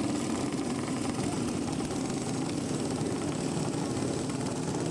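Several racing kart engines running together, a steady mixed drone with no single clear pitch.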